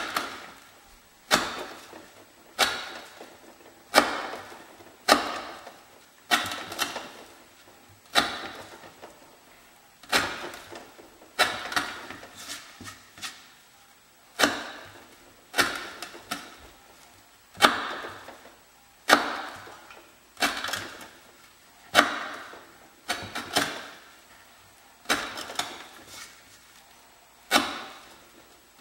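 Swamp Rat Rodent Solution knife chopping through 1/4-inch sisal rope into a wooden board. There is one sharp cut-and-knock of the blade into the wood roughly every second and a quarter, and each fades quickly.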